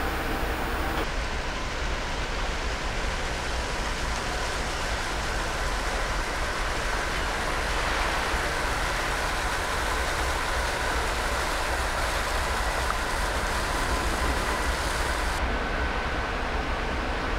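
Steady machinery noise from a berthed destroyer: a constant hiss with a low rumble underneath and a few faint steady whines, the sound of shipboard fans and generators running alongside the wharf.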